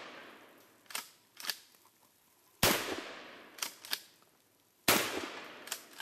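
Gunshots, two in a row a little over two seconds apart, each ringing out over about a second. Shorter, fainter cracks come in between: two about a second in, two after the first shot and one after the second.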